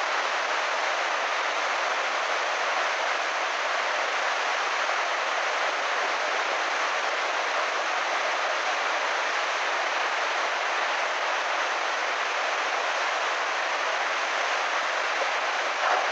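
Muddy flash-flood water rushing in a steady torrent, a continuous even rush with no letup.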